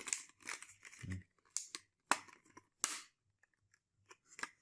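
Sharp clicks and scraping of fingers working a laptop's memory module and its slot clips to release the RAM stick, about five distinct clicks spread over the few seconds.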